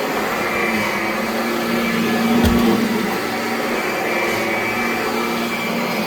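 Kirby Avalir 2 upright vacuum running steadily over carpet, with a steady motor hum and whine. A short louder swell with a thump comes about two and a half seconds in.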